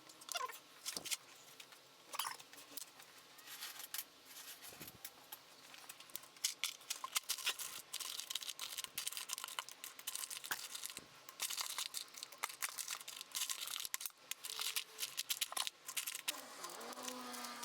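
Rapid clicks, rattles and crinkling from hand work on plastic trim panels and fasteners, busiest from about six seconds in.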